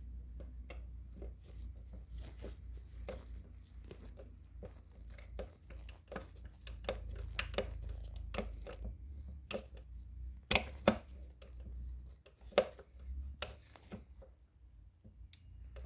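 Irregular clicks and knocks of a motorcycle's plastic headlight housing and its fixing clip and screw being handled and fitted back together, with a few sharper knocks about two-thirds of the way through, over a steady low hum.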